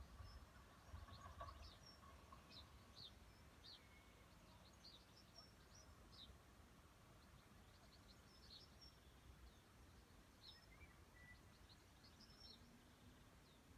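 Near silence with faint birdsong: scattered short, high chirps over a low background rumble.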